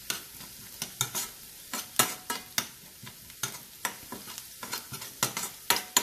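Chopped shallots and curry leaves sizzling in hot coconut oil in a pan, stirred with a spatula that scrapes and taps against the pan in irregular strokes.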